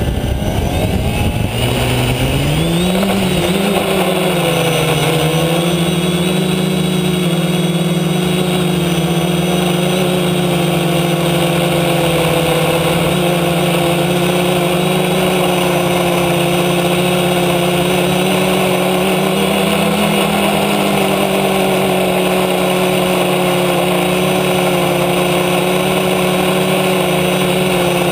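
Propellers and brushless motors of an F450 quadcopter spinning up for takeoff, with the pitch rising over the first few seconds, then a steady buzzing hum as it flies, heard close up from the camera on its frame.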